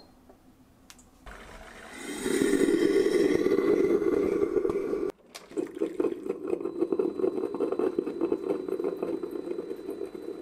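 Ninja Hot and Cold Brewed System (CP307) coffee maker starting a classic brew cycle with plain water: its pump and heater start up about a second in and run steadily, pushing water through with a rushing, gurgling sound. It breaks off for a moment about five seconds in, then carries on more unevenly.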